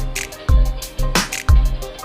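Background music with a steady beat of deep bass drum hits and sharp snare-like strokes over sustained tones.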